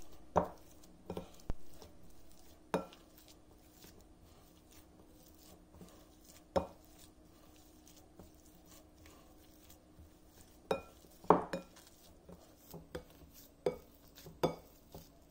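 Plastic potato masher mashing boiled potatoes in a glass bowl, knocking against the bottom of the bowl at irregular intervals, with quicker knocks near the end.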